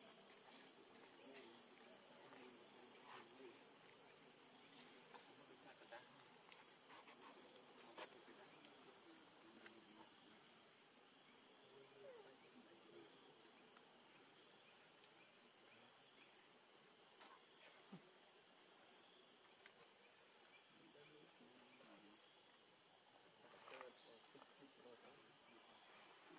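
Faint, steady high-pitched insect chorus, with a few faint clicks.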